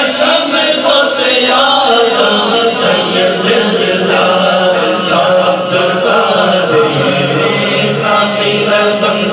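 Men's voices chanting a devotional Islamic naat into microphones, a lead reciter's sustained, wavering melody carrying it.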